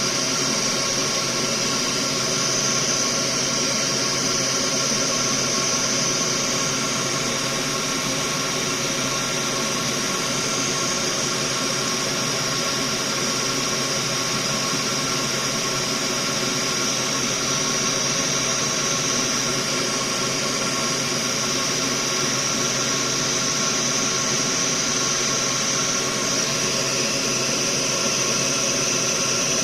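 Soldering fume extractor fan running steadily: an even rush of air with a steady hum of several tones.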